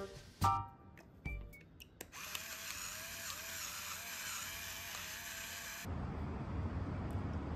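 Electric pepper grinder running for about four seconds, a steady motor whir with a wavering whine over the crunch of grinding peppercorns; it cuts off suddenly. A steady low rumble follows.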